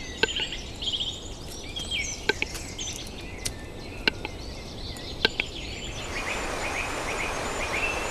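Forest birdsong with a few sharp, widely spaced clicks from a displaying western capercaillie (wood grouse). About six seconds in it gives way to a steady rush of a mountain stream with a short high chirp repeated over and over.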